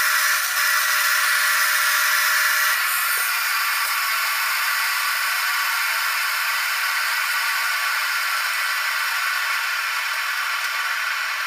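Steady, even hiss with no low end, unchanging apart from a slight drop in level about three seconds in.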